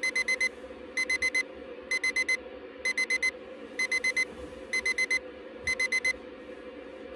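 Electronic alarm clock beeping in quick bursts of four, about one burst a second, until it stops about six seconds in. A steady low hum runs underneath.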